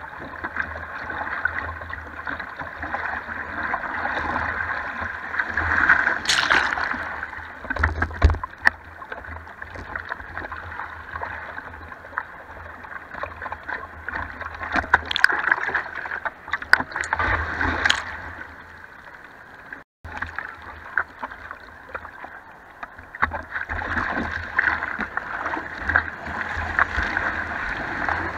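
Sea water sloshing and splashing against a surfboard, heard close up from a camera on the board, with several sudden sharper splashes. Near the end, broken-wave white water rushes over the board.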